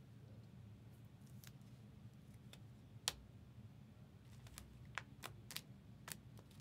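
Near silence with a low room hum, broken by a few faint, sharp clicks and taps of small handled objects: one louder click about three seconds in and a quick cluster of them near the end.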